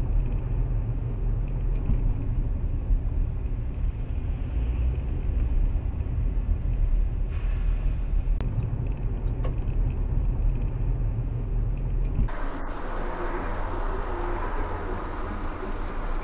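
Steady low rumble of a car's engine and tyres heard from inside the cabin by a dashboard camera while driving in traffic. About twelve seconds in, the sound switches abruptly to a different dashcam recording with a hissier traffic noise.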